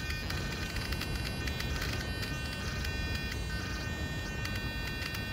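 RC car throttle servo buzzing steadily as it holds the nitro carburetor slide partly open, with a faint high whine and light ticks throughout.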